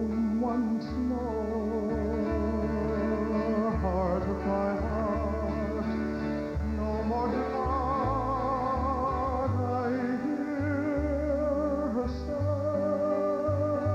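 Men's voices singing a slow Hawaiian song with a wide vibrato on held notes, over acoustic string accompaniment and a bass line.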